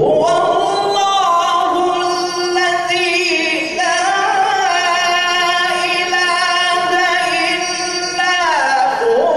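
A male qari chanting Quran recitation (tilawat) into a microphone in the melodic tajwid style. The voice comes in abruptly and holds one long, ornamented line with wavering turns, falling in pitch near the end.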